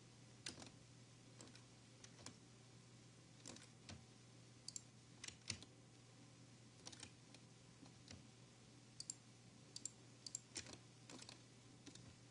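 Faint computer mouse and keyboard clicks, irregular and scattered, some in quick pairs, over a steady low hum.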